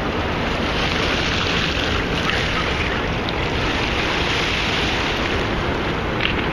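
Steady, loud rushing noise of wind buffeting the microphone outdoors, with a few faint ticks.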